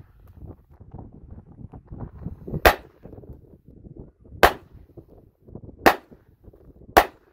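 Bruni nickel-plated 9mm blank-firing pistol firing four blank rounds, sharp reports coming a little quicker each time, the first about two and a half seconds in.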